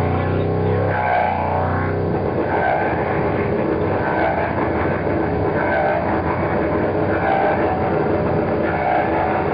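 Loud improvised noise music. A steady low drone gives way about two seconds in to a dense, rough wall of noise, with a wavering higher tone that comes back about every second and a half.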